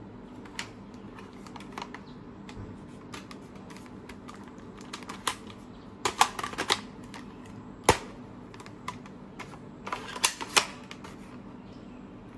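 Plastic clicks and clacks from a spring airsoft AK-47 replica being handled, its magazine fitted into the well. The clicks come singly and in short bursts, the sharpest clusters about halfway through and again about four-fifths of the way through.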